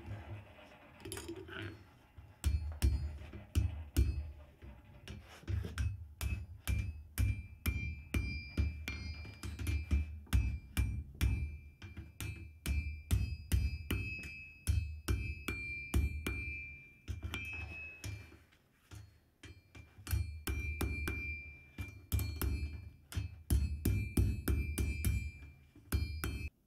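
Hand hammer beating a red-hot steel bar on an anvil: runs of blows a few per second, each with a short metallic ring, starting a couple of seconds in and pausing briefly about two-thirds of the way through.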